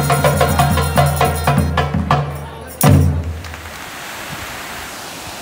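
Live street music: a frame drum beating a rhythm over a sustained pitched wind-instrument drone, ending on one loud stroke about three seconds in. It cuts to the steady rush of water spilling over a low weir.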